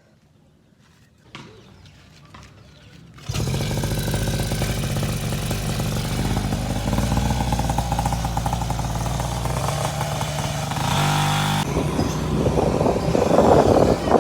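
A few light clicks, then a few seconds in, the small two-stroke brush-cutter engine of a mini motorbike comes in suddenly and runs loud and steady. Its note changes in the last few seconds.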